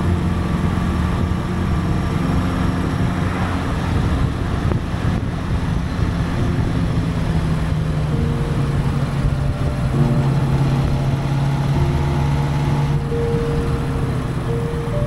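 Honda Gold Wing motorcycle with sidecar running at a steady road speed, its engine hum mixed with wind rush on the bike-mounted microphone. The engine note drops slightly about two-thirds of the way through.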